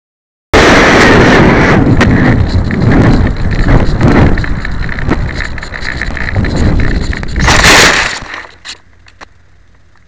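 Loud wind buffeting on an RC sailplane's onboard keychain camera microphone as the glider flies low in strong wind, cutting in abruptly about half a second in. Near the end a loud brushing swell as the fuselage touches down and slides into long grass, then a few small ticks and a faint hiss once it has stopped.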